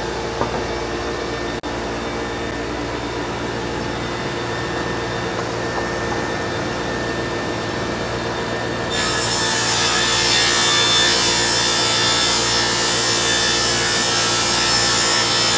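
Gang rip saw running with a steady machine hum. About nine seconds in, a 2x4 feeds into the blades and a loud, hissing cutting noise sets in and holds as the board is ripped into laths.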